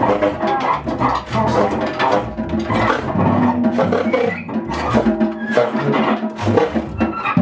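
Live jazz quartet playing: saxophone and hollow-body electric guitar lines over double bass and a drum kit with frequent cymbal and drum hits.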